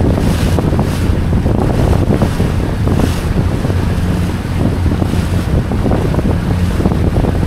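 A boat's outboard engine running steadily under way, a constant low hum, with wind buffeting the microphone and the wake's water rushing behind the hull.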